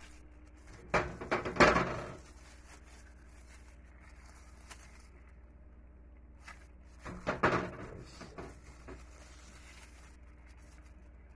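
Glass baking dish knocking and rattling on a stainless-steel sink drainboard as pork ribs are mixed by hand in marinade, in two short bursts about a second in and about seven seconds in, over a low steady hum.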